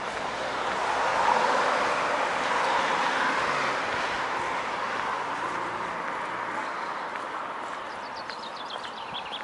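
Road traffic: the tyre hiss of a passing vehicle, swelling over the first couple of seconds and then slowly fading away. A small bird chirps several times near the end.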